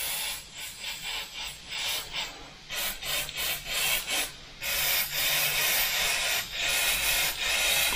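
Mr Hobby gravity-feed airbrush spraying candy green paint, its air hissing on and off in short stretches as the trigger is worked for light passes.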